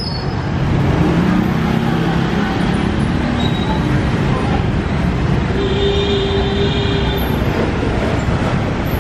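Steady road traffic noise with running vehicle engines. A low engine hum stands out a second or two in, and a held tone lasts about two seconds past the middle.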